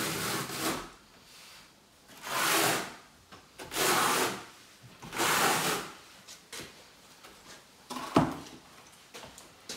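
6 mm notched trowel scraping across wet tile adhesive on a wall, four long combing strokes about a second and a half apart. A sharp knock follows about eight seconds in.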